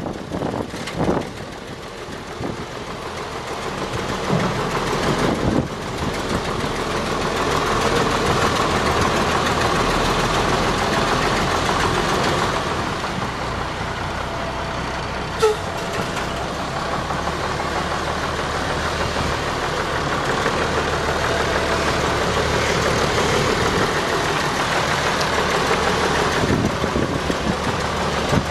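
International DT466 six-cylinder diesel engine of a 1978 International F2554 dump truck running steadily, growing louder over the first several seconds. A single short click about halfway through.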